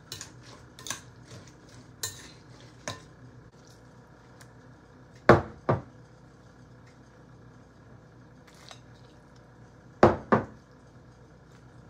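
Metal spoon clinking and scraping in a glass mixing bowl while a mixture is stirred and scooped out. There are two louder double knocks, about five seconds in and about ten seconds in.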